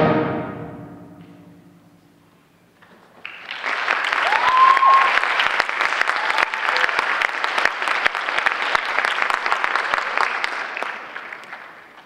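A symphonic wind band's final chord cuts off and rings away in the hall's reverberation. After a brief hush the audience breaks into applause, with one rising whistle soon after the clapping starts. The applause fades out near the end.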